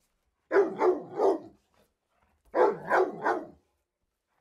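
A dog barking: two quick runs of three barks each, the first about half a second in and the second about two and a half seconds in.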